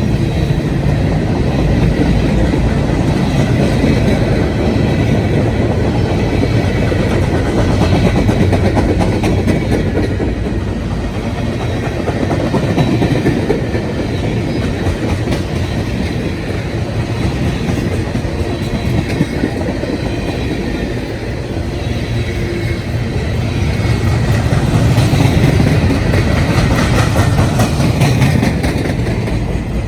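Long mixed freight train, a CSX manifest, rolling steadily past, its cars' wheels running over the rails, swelling a little louder near the end.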